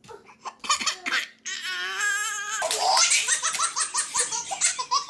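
Babies laughing: a few short giggles, a long high squeal, then a run of quick belly laughs, about four a second.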